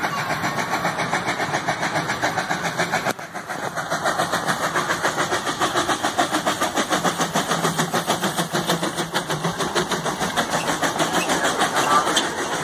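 Diesel-fired narrow-gauge steam locomotive working past at close range, its exhaust chuffing in a quick, even rhythm of about five beats a second.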